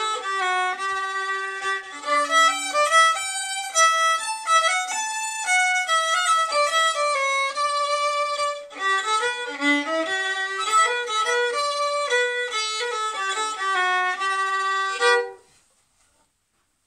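Solo fiddle playing a hornpipe tune in quick runs of bowed notes, with a brief break about halfway through. The tune ends about fifteen seconds in.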